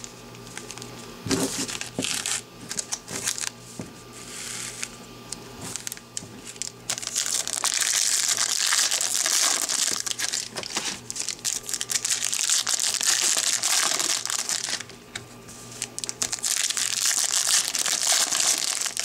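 Foil trading-card packs being torn open and their wrappers crinkled by hand, with packs and cards handled on a table. The crinkling turns dense and continuous about seven seconds in, eases briefly, then picks up again near the end.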